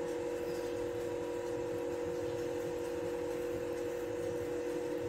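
A steady two-tone hum with a low rumble underneath, unchanging throughout.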